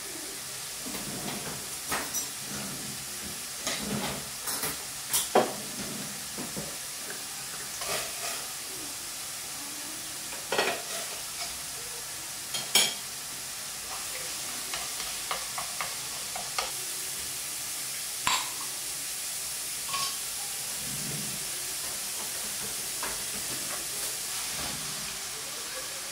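Ground meat sizzling in a frying pan on a gas stove, stirred with wooden chopsticks that knock and scrape against the pan now and then.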